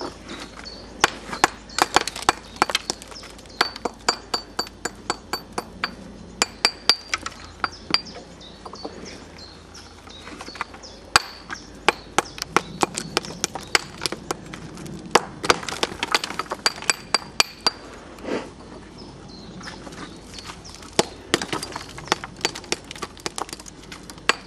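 Reclaimed Victorian glazed bricks clinking and knocking against each other as they are picked off a pile and handled: a long run of sharp clicks, several a second, some with a short high ring.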